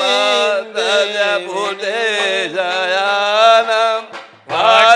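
A voice chanting a Sanskrit devotional hymn in a slow, sung melody, with a steady low tone held beneath. The chant breaks off briefly about four seconds in, then resumes.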